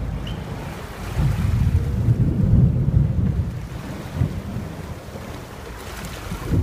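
Wind buffeting the microphone: an uneven, gusty low rumble that swells and dips, with a faint steady hum underneath.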